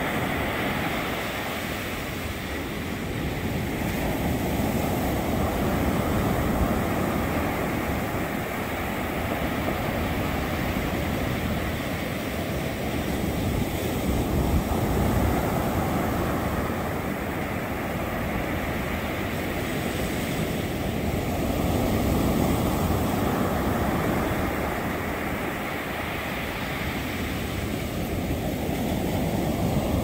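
Ocean surf breaking on a sandy beach: a steady wash of waves that swells and eases every several seconds as each one comes in and runs up the sand.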